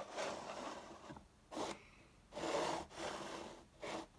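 Plastic LEGO bricks and minifigures being handled, rubbing and scraping against each other and the baseplate in several short bursts.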